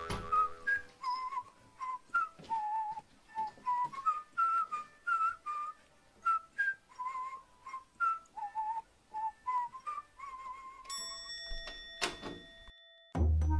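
A tune whistled in short, separate notes that step up and down in pitch, some with a slight waver. Near the end comes one longer held note and a thin steady high tone, then a click and a moment of silence.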